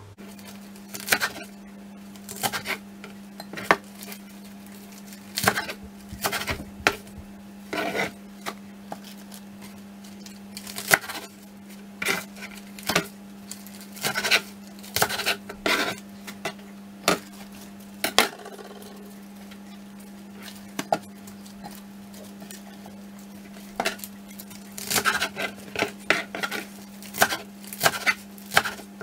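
Kitchen knife cutting lettuce on a plastic cutting board: irregular sharp knocks of the blade on the board in short runs, with a pause of a few seconds past the middle.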